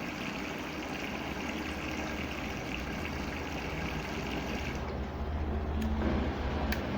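Samsung washing machine taking in water: a steady hiss of water running into the tub, which stops about five seconds in. A low machine hum carries on after it, with two faint ticks.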